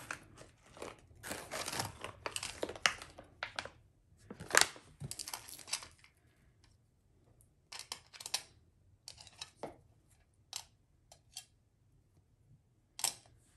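Plastic packaging crinkling and rustling as a diamond painting toolkit is unpacked by hand, dense for the first half, then sparser rustles and light clicks of small plastic pieces.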